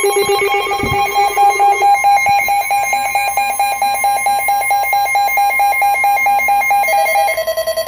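Several weather radios sounding their alert alarms at once for a severe thunderstorm warning: loud, rapidly pulsing beeps at different pitches overlapping. The lowest beep stops about two seconds in, and one tone drops in pitch near the end. A brief low thump comes about a second in.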